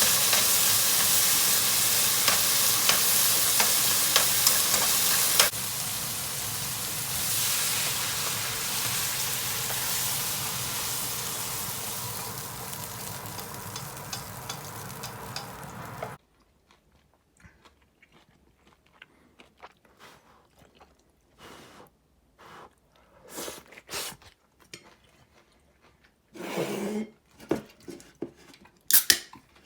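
Horumon, garlic and bean sprouts sizzling as they stir-fry in a pan, with light clicks of a utensil against the pan. The sizzling turns quieter about five seconds in and cuts off suddenly about halfway through, leaving scattered clicks and knocks.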